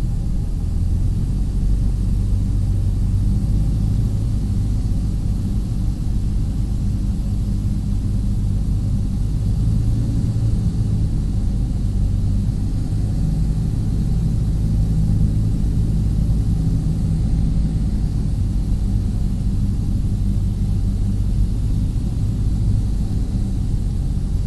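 Cessna 172's piston engine and propeller running steadily on final approach, a continuous low drone heard from inside the cockpit, with light air hiss over it.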